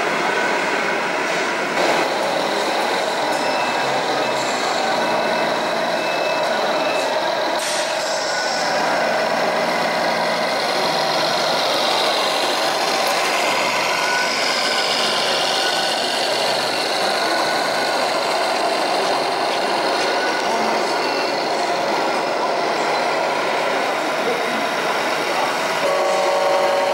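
Scale RC model trucks' electronic sound units playing truck engine noise at a busy show, with a brief pitched tone near the end.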